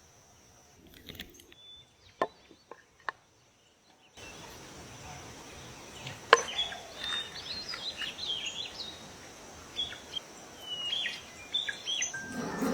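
A few seconds of near quiet broken by a few sharp clicks, then a steady outdoor background hiss with birds chirping, cut by another sharp click.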